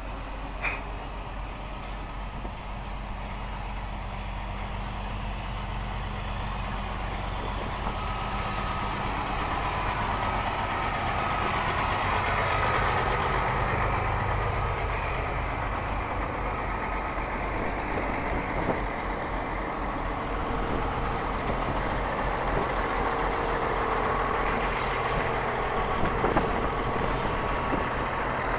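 Steady low drone of idling semi-truck diesel engines, with a hiss of noise that slowly grows louder through the middle.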